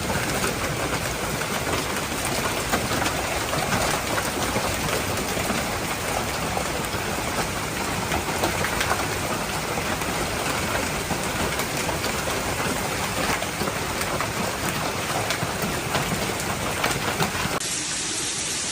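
Heavy downpour pelting a surface, steady, with many sharp individual taps. Near the end it cuts suddenly to a thinner, softer hiss.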